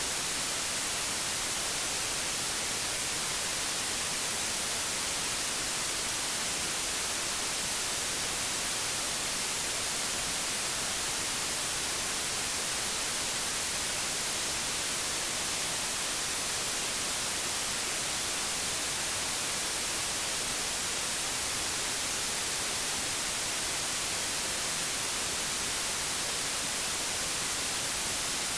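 Television static: a steady, unchanging white-noise hiss, strongest in the highs.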